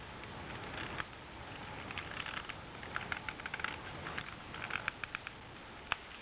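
Space bar being pried and pulled off a Microsoft Natural Ergonomic Keyboard 4000: clusters of small plastic clicks and rattles, ending in one sharper click near the end.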